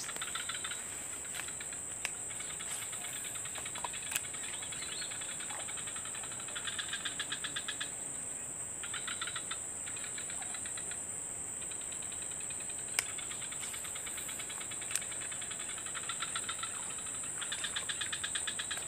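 Insects calling: a steady high-pitched drone, with bursts of rapid pulsing chirps about a second long repeating through it, and a few sharp faint clicks.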